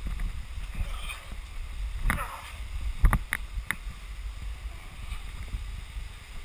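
Caver's gloves, body and helmet scraping and knocking against cave rock while squeezing through a tight crawl, over a low rumble of rubbing on the helmet camera. A few sharp knocks come between about two and four seconds in.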